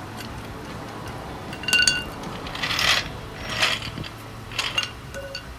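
Small metal objects being handled: a sharp ringing metallic clink about two seconds in, followed by several short rattles and scrapes over a low steady hum.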